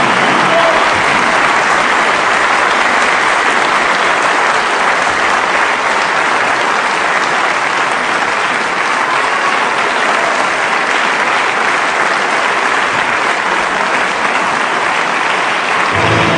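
Sustained applause from a large crowd, dense and steady throughout.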